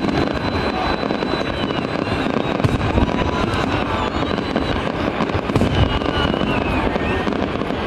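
Fireworks display going off without pause: a dense run of low booms and crackle, with thin high whistles wavering above it.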